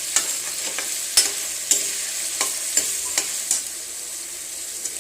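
Food sizzling in a hot pan while it is stirred, a spatula clicking and scraping against the pan about eight times in the first three and a half seconds; then just the steady sizzle.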